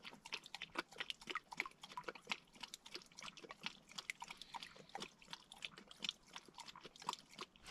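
A dog chewing: a faint run of quick, irregular crunches and clicks.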